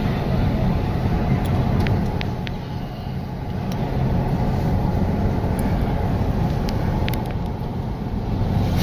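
Car running along a wet asphalt road, heard from inside the cabin: a steady low engine and road rumble with tyre noise. A few light, sharp clicks are scattered through it.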